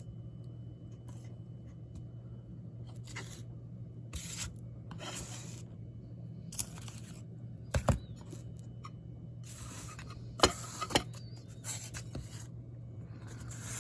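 Intermittent short scrapes and a few sharp clicks from a utensil working through a chicken pot pie in its dish, over a steady low hum.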